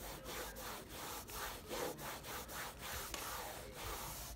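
A cloth rubbed back and forth over plastic car door trim, working teak oil into the faded plastic: a soft, rhythmic swishing of about three strokes a second.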